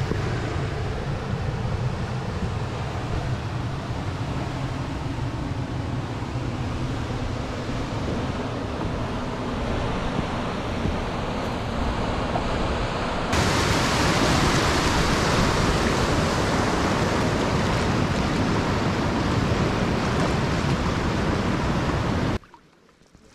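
Rushing whitewater of river rapids, a steady rush of falling water. About halfway through it becomes louder and brighter, closer to the whitewater, then cuts off suddenly near the end.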